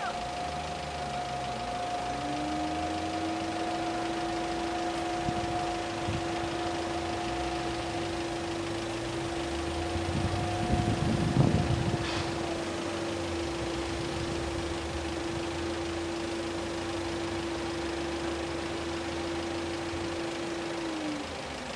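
A motor running steadily with a held whine that slides up at the start and drops away near the end, over a low rumble that swells louder about halfway through.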